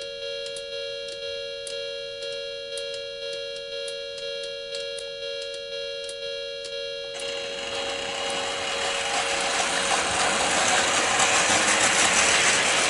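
Model railroad crossing signal sounding its warning bell: a steady ringing two-note tone with regular clicks. About seven seconds in, a model train's wheels begin running loudly over the track, growing louder toward the end.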